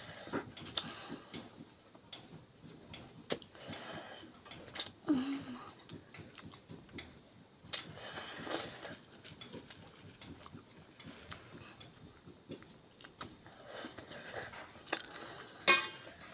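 A child slurping and chewing spicy instant ramen noodles, with a slurp every few seconds and small clicks of a steel fork and spoon against a steel plate. A sharp metallic clink near the end.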